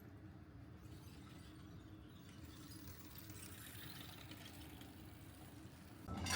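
Faint, steady low background rumble, like outdoor ambience, with a louder sound coming in near the end.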